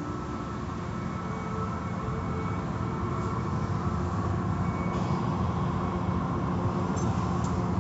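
Automatic tunnel car wash running: a steady mix of machinery hum, water spray and hanging cloth strips swishing over a car, with a few faint steady tones in it.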